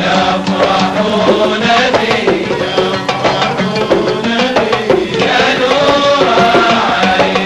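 Gulf sawt music: men singing to an oud, with small double-headed mirwas hand drums beating the rhythm.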